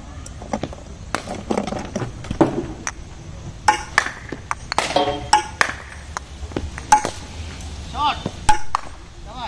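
A string of sharp knocks and clinks, as of cricket balls striking bats and the ground at practice nets, with voices in the background.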